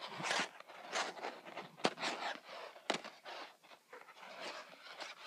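Plastic lacing (gimp) strands being handled and pulled close to the microphone: uneven bursts of rustling and scraping, with two sharp clicks partway through.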